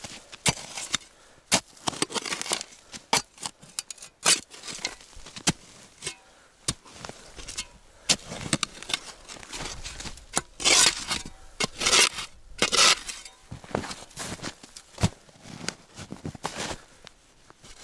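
Steel spade digging into snow-covered, frozen soil: irregular chops and scrapes as the blade is driven in and earth is levered out, with a run of longer, louder scrapes about ten seconds in.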